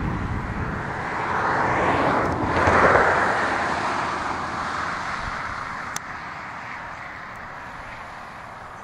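A vehicle passing by, its road noise swelling to a peak about three seconds in and then slowly fading away.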